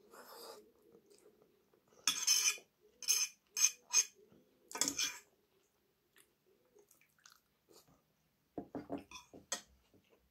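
Fork clinking and scraping against a frying pan while eating, in a run of sharp clinks between about two and five seconds in, with a few more near the end.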